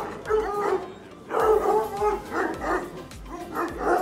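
A pack of tricolour Anglo-French hounds baying and yelping together, many overlapping calls with a short lull about a second in; the hungry hounds know it is almost time to eat.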